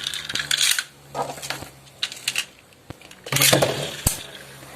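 Two Beyblade Burst spinning tops, Legend Spryzen and Genesis Valtryek, spinning and colliding in a plastic stadium. A steady low hum runs under them, with several bursts of rattling clatter as they clash and sharp clicks near the end.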